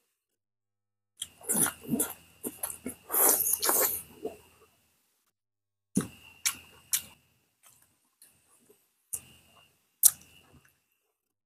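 Close-miked mukbang eating sounds: wet chewing, lip smacking and sucking on pieces of boiled pork and vegetables eaten by hand. They come in a busy stretch from about one to four and a half seconds in, then as a few scattered smacks and clicks.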